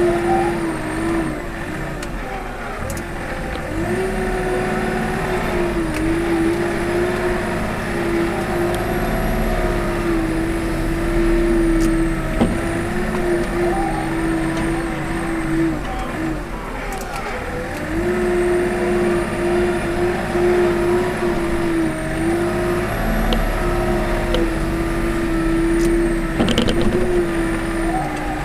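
Komatsu WA40 mini wheel loader's diesel engine running hard with a steady whine while the loader works snow with its bucket. The whine wavers in pitch and falls away briefly twice, a couple of seconds in and again around sixteen seconds.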